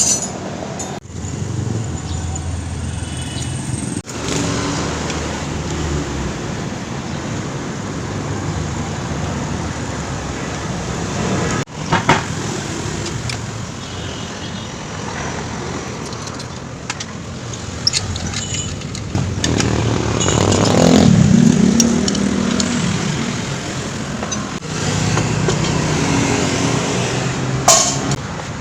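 Steady motor-vehicle traffic noise with engines running, one vehicle growing louder around twenty seconds in, broken by a few abrupt cuts.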